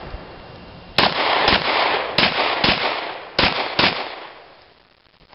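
Six pistol shots fired in three quick pairs, each with a long echo, the echo dying away after the last pair.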